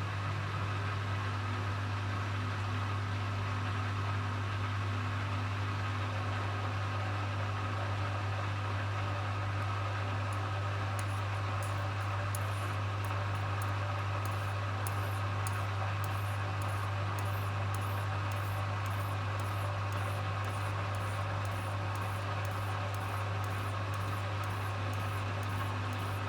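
Hoover HW411AMC washing machine on its final spin, the drum and motor running at a steady high speed with a constant hum. About ten seconds in, faint light ticks start repeating about twice a second.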